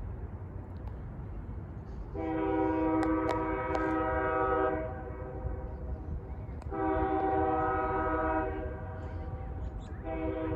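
CSX ES44DC locomotive's air horn sounding for a grade crossing: two long blasts of a multi-note chord, then a short one near the end, over a steady low rumble.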